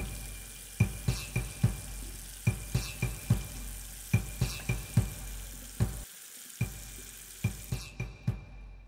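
A steady hiss of running tap water under a repeating beat of short low thuds that come in groups of four, about every second and a half. The hiss drops away near the end while the thuds go on.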